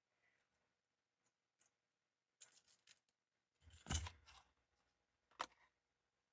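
Hands handling blind-box toy packaging: a few short rustles and scrapes, a louder rustle with a soft thump about four seconds in, and a sharp click near the end.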